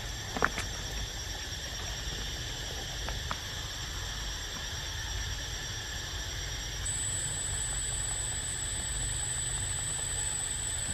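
Steady outdoor background of a high-pitched insect drone over a low rumble; the drone steps up to a louder, slightly higher tone about seven seconds in. A few soft rustling clicks sound in the first second.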